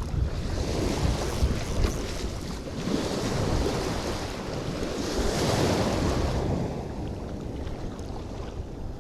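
Surf washing on a beach, a wave rushing up and hissing about three seconds in and easing off after six, with wind rumbling on the microphone.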